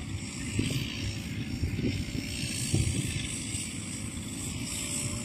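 Rice combine harvesters running in the field, a steady low engine drone with a few soft thumps.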